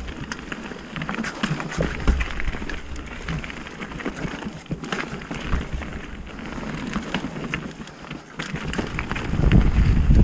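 Mountain bike descending a dirt forest trail at speed: tyres rolling over dirt and roots, with a steady stream of small clicks and knocks from the bike rattling over the bumps. Wind rumbling on the microphone gets louder near the end.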